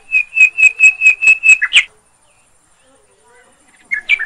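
A bird calling a fast run of about eight sharp, loud, whistled notes over two seconds. The last note slides in pitch. A second run of notes starts near the end.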